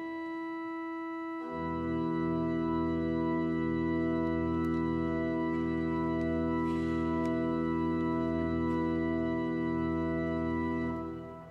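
Church pipe organ playing sustained chords: a softer chord gives way to a fuller one about a second and a half in, which is held and then released near the end, dying away in the church's reverberation.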